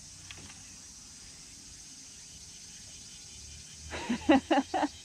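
Steady high drone of summer insects from the wooded shore. About four seconds in, a person's voice cuts in with a quick burst of four loud syllables.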